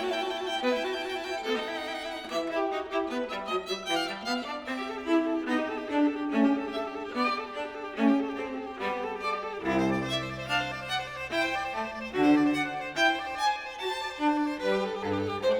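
Instrumental music: a melody of pitched notes, with a lower bass line joining about ten seconds in.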